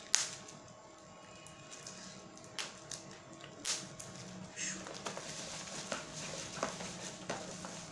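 Plastic bubble wrap crinkling and crackling as hands unwrap it from a parcel: a few separate sharp crackles at first, then denser rustling from about halfway.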